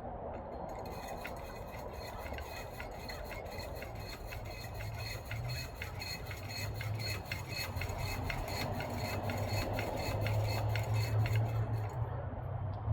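Shock sleeve being pressed over a greased socket into a urethane bushing: a rubbing creak made of many small ticks as it works through, with a low hum that grows louder toward the end.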